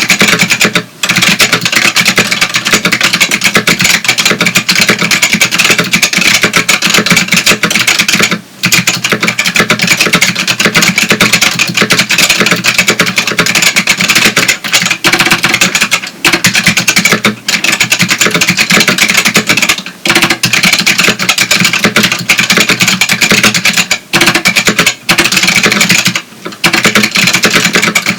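Fast, continuous typing on a Matias Tactile Pro 4 keyboard with Matias Click switches (clones of Alps white switches): a dense stream of sharp key clicks, broken by a few brief pauses.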